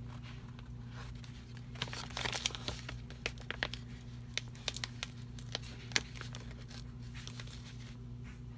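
A paper sticker sheet being handled: crinkling and rustling about two seconds in, then a run of light clicks and taps, the sharpest about six seconds in, over a steady low hum.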